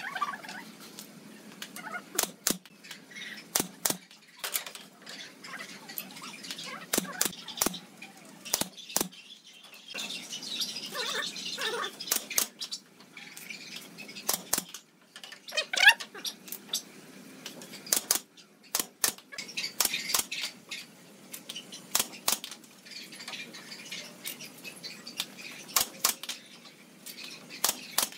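Scattered sharp wooden knocks and clacks as pallet-wood railing slats are handled and fitted onto the dog house porch, with a few short high chirps in between.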